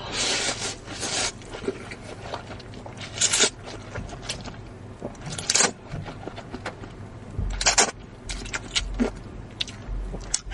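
Close-up eating sounds from a bowl of Lanzhou beef noodles: irregular short bursts of wet, noisy sound, about half a dozen over the stretch.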